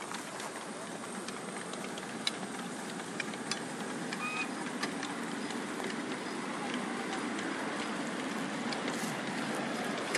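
Ride-on live-steam miniature locomotive, a Norfolk and Western model, running past with its train of riding cars: a steady rushing noise with scattered clicks of wheels on the rails, growing a little louder.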